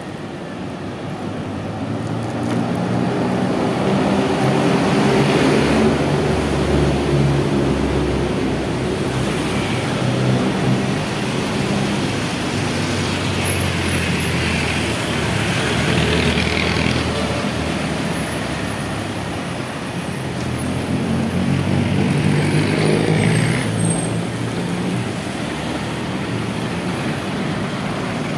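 City road traffic heard from the curb lane: motor vehicle engines and tyre noise rising and falling as vehicles pass close by, loudest a few seconds in and again a little past twenty seconds.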